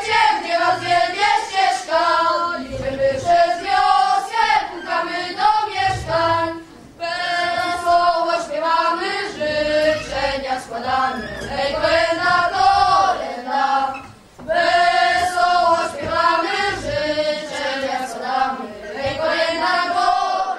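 A group of boys singing a Polish Christmas carol (kolęda) together, breaking off briefly twice between phrases.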